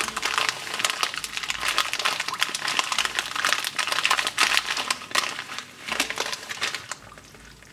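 Foil-lined ration pouch crinkling and crackling as it is squeezed and worked by hand to shake powder out, going quieter near the end.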